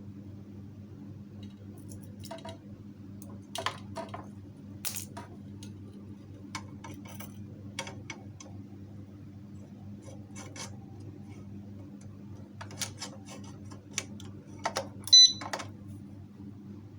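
Scattered light metallic clinks and taps from handling a motorcycle disc-brake alarm lock, over a steady low hum. About fifteen seconds in there is a short, high electronic beep, the loudest sound here.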